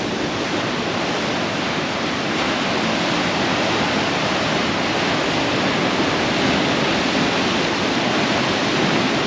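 Sea surf breaking and washing over the shoreline rocks: a steady rush of foaming water that grows a little louder after about two seconds.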